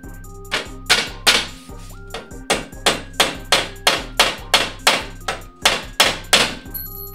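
A hammer striking repeatedly in quick succession, about three blows a second for some six seconds, over background music.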